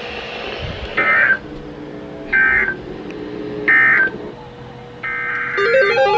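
Emergency Alert System end-of-message data tones: three short, identical bursts of warbling two-tone digital data, about a second and a half apart. They close the NOAA Weather Radio severe thunderstorm warning. Near the end a steady tone sounds and music begins.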